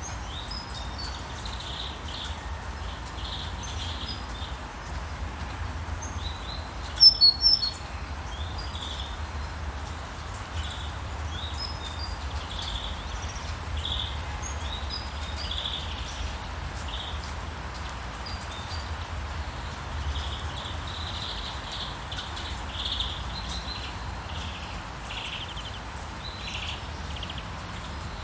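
Birds chirping and singing over a steady hiss of light rainfall and a low rumble, with one loud burst of high, sharp calls about seven seconds in.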